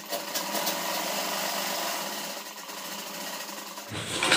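Sewing machine running steadily, stitching a straight seam through layered trouser fabric, then stopping about four seconds in.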